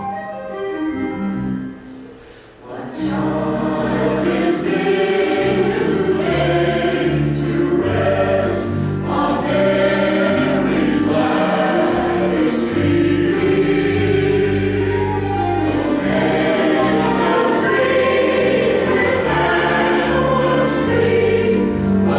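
Mixed-voice church choir singing. The sound thins out briefly about two seconds in, then the full choir comes back in about three seconds in and keeps singing.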